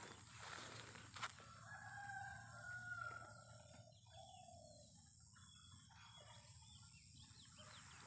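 A rooster crowing faintly, one long crow starting about a second and a half in, followed by a shorter call a moment later.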